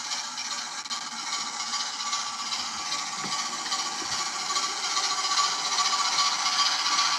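OO gauge model locomotive running along the track: a steady small electric motor whir with a thin whine and wheel-on-rail noise, getting louder over the last few seconds as it draws close.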